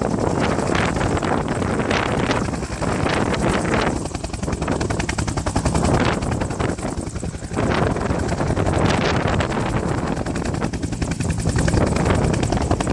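Firefighting helicopter with a two-bladed main rotor hovering low overhead, its rotor beating in a rapid, steady chop.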